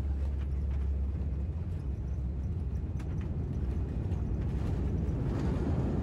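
Steady low cabin rumble of a Boeing 787 rolling on the ground after landing, with a few faint knocks and rattles.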